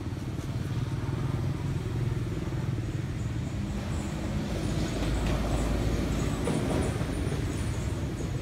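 Motor vehicle engine running steadily, growing louder a few seconds in as it comes closer, then easing off. Faint high chirping sounds above it in the second half.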